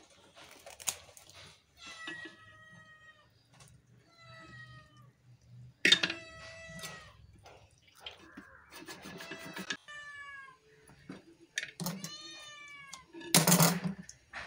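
A cat meowing repeatedly, about five or six separate meows, some of them drawn out with a rising-then-falling pitch. A brief harsh louder noise comes near the end.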